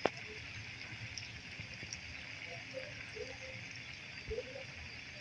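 Steady sizzle of a breadcrumb-coated potato sandwich deep-frying in hot oil, with a single sharp click at the very start.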